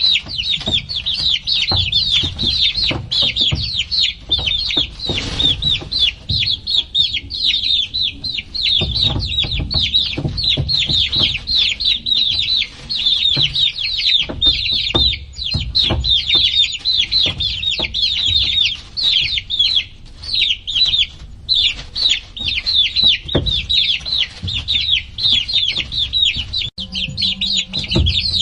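A brood of baby chicks peeping nonstop: many rapid, overlapping, short downward-sliding peeps, with scattered low thumps underneath.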